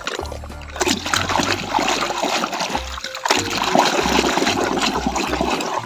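Muddy water splashing and sloshing as a mud-caked plastic toy locomotive is scrubbed by hand in shallow water, the splashing nearly continuous with a short lull about halfway.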